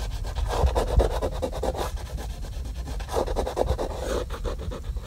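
A finger rubbed over a patch of plastic canoe hull that has just been heated with a gas stove, making a dry, rasping scratch in several strokes. The heat has drawn oils out and roughened the plastic without any sandpaper, readying it for glue.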